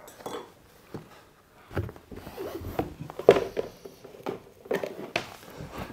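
Large cardboard game board being unfolded and laid flat on a wooden table: scattered soft knocks and rustles of board and cardboard, the loudest a little after three seconds in.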